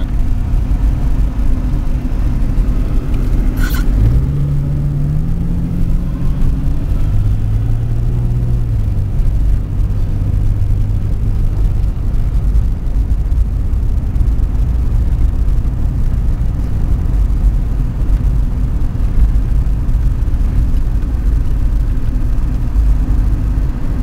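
Car engine and road rumble heard from inside the cabin while driving on snow-packed streets. A short click comes just before four seconds in; then the engine note climbs as the car speeds up, drops back and holds for a few seconds before blending into the steady rumble.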